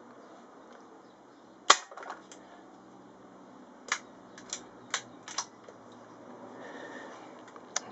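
An air rifle fires a single sharp shot, the loudest sound, with small clicks just after it. Several lighter clicks and knocks follow a couple of seconds later.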